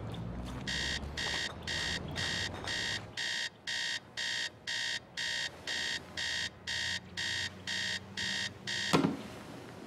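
Digital alarm clock beeping, about two to three short high-pitched beeps a second, cut off by a thump about nine seconds in.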